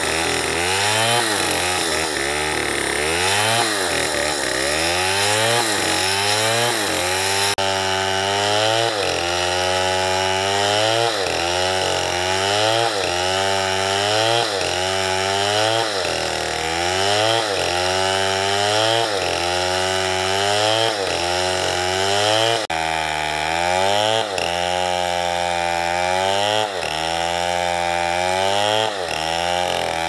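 Stihl two-stroke chainsaw cutting through palm trunks at full throttle. The engine note sags as the chain bites and picks up again, about once a second.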